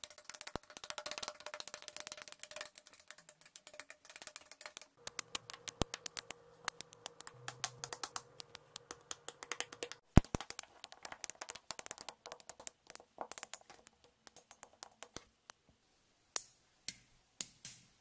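Steel balls and magnetic rods of a magnetic building set clicking and snapping together as pieces are attached and pulled off, in rapid runs of sharp clicks, played back sped up. A few louder single snaps stand out, one about ten seconds in and three near the end.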